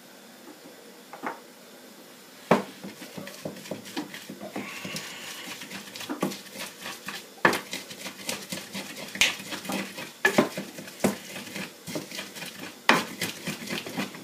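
Wooden pestle grinding fresh peppers, garlic and ginger in a grinding bowl. From about two and a half seconds in come irregular knocks and scrapes of wood on the bowl, some much louder than others.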